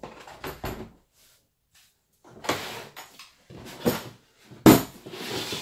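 Hard plastic tool case being handled as a cordless impact wrench is lifted out: a run of plastic rattles and knocks, the loudest a sharp clack near the end as the case lid is moved.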